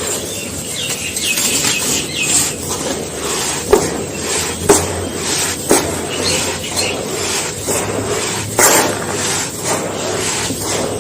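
A dry, grainy, sandy block being crumbled and crushed, with continuous gritty crunching. Sharp snaps come about once a second near the middle, and a denser burst of crumbling comes near the end.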